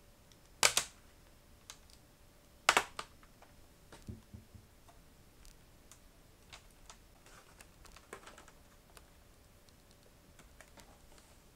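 Plastic snap tabs of a Sony laptop's screen bezel popping loose as the bezel is pulled off by hand: two sharp snaps in the first three seconds, then lighter plastic clicks.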